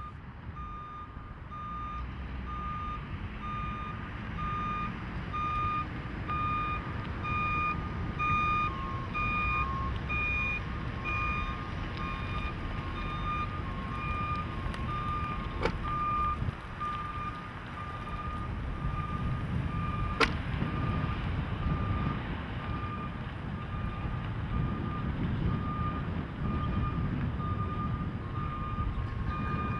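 Warning beeper of a driverless 2000 Chevrolet Blazer running in autonomous mode, sounding an evenly repeating high beep over a low rumble. Two sharp clicks come about halfway through.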